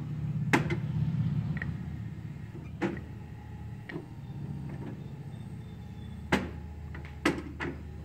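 Schaerer Coffee Art Plus super-automatic espresso machine cycling through its start-up: internal motors run with a low hum, louder for the first couple of seconds, with sharp clicks from inside the machine about six times, as it sets about heating for steam.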